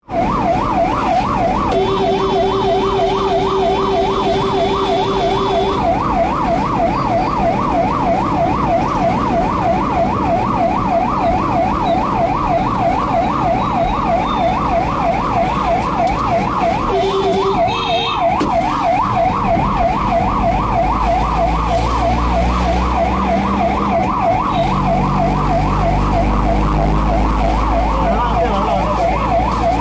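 Ambulance siren in a fast electronic warble, rising and falling about three times a second, heard from inside the moving ambulance. A steady horn tone sounds for about four seconds near the start and briefly again past halfway, and a deeper rumble comes up in the last third.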